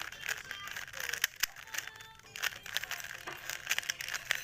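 Plastic 3x3 Rubik's cube being turned fast by hand: a rapid, irregular run of clicks and clacks as the layers snap round.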